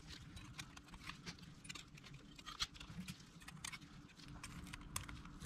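Faint, irregular clicks and light clinks of motorcycle clutch plates being slid one by one onto the splines of the clutch basket.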